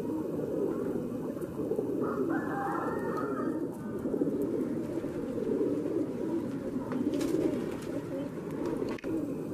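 Many domestic pigeons cooing together in a continuous, low, overlapping chorus.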